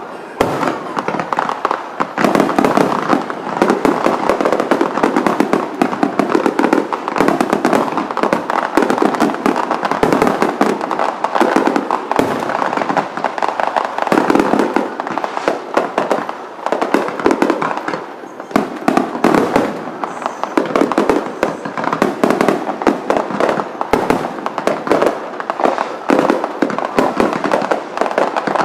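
Aerial fireworks shells bursting in a dense, unbroken barrage: a rapid string of sharp bangs and pops, easing briefly about eighteen seconds in.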